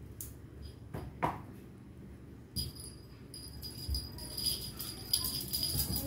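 Small bell on a wand cat toy jingling as the toy is dangled and batted by a kitten, starting a few seconds in and growing busier. A short falling squeak sounds about a second in.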